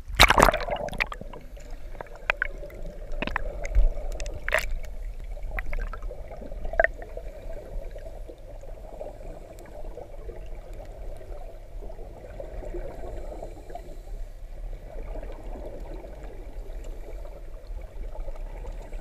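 Muffled underwater pool sound: a scuba diver's exhaled bubbles gurgling in a steady wash that swells and fades. Scattered sharp clicks and knocks come during the first several seconds.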